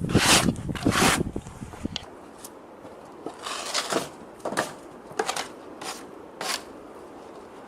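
A loud, rough rumble of work noise that stops about two seconds in, followed by short scraping strokes, about one every half second or so.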